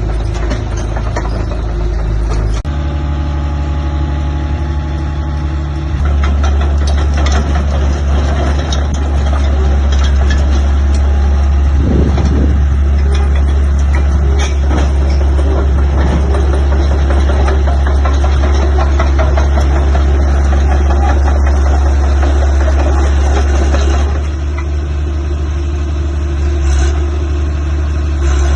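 Cat D3C-III LGP bulldozer's diesel engine running. It idles, is throttled up about six seconds in and held at higher revs, then settles back toward idle near the end.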